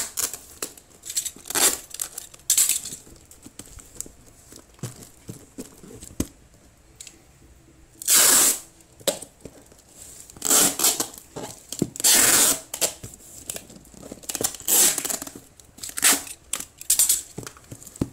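Packing tape being pulled off the roll and pressed onto a cardboard box: a series of loud rips of varying length, the longest about eight and twelve seconds in, with box-handling rustles between.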